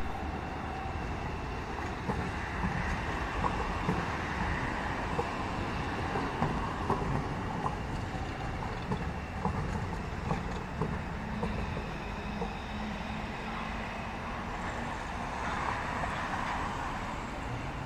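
Solaris NGT10 low-floor tram rolling slowly past through a track junction, a steady running noise with scattered light clicks from the wheels over the rails.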